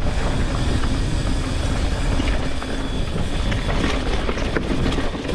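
Mountain bike descending a dirt trail, heard from a rider-worn GoPro: a steady rumble of wind on the microphone and tyres on dirt, with scattered rattling clicks from the bike.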